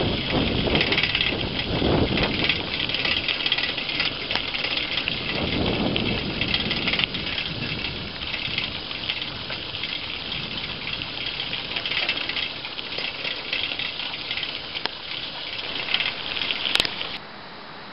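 Bicycle tyres rolling over a gravel road: a steady rough noise with no engine note. Near the end it cuts off suddenly to a quieter steady hiss.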